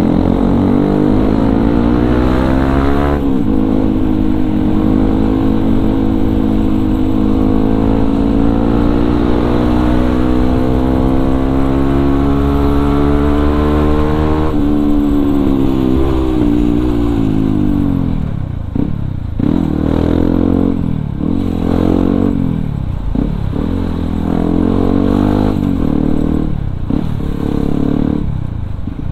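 Yamaha WR155R's single-cylinder engine through an aftermarket racing exhaust, heard from the rider's seat while riding. It climbs in pitch and shifts up about three seconds in, then pulls steadily. From about eighteen seconds in it revs up and drops off again and again in short throttle blips.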